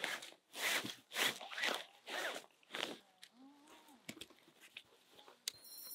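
Nylon camp-cot fabric rustling and swishing as it is pulled and spread out by hand, about five quick swishes in the first three seconds, then quieter handling with a few light clicks from the cot's frame.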